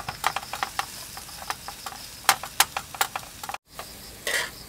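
Wooden spatula knocking and scraping on a cutting board as sliced onions are pushed off it into a frying pan: a quick, irregular run of sharp clicks that stops abruptly a little over three seconds in.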